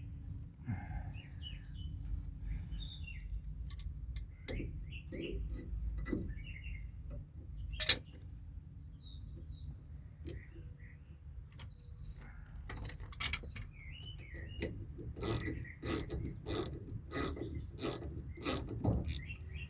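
Ratchet wrench clicking on a rusty brake bolt: scattered clicks and a sharp metal clink about eight seconds in, then a steady run of ratcheting strokes, about two to three a second, in the last few seconds. Birds chirp faintly behind.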